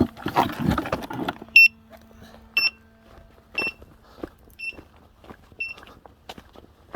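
An electronic device gives five short, high-pitched beeps about a second apart, the first the loudest, over footsteps and light rustling.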